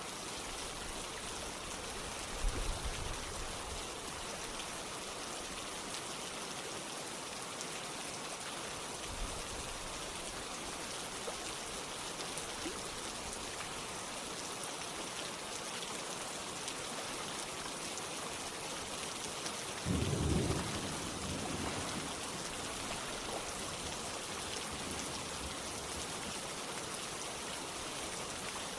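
Steady rainfall, an even hiss. Two short low rumbles rise out of it, a small one about two and a half seconds in and a louder one about twenty seconds in.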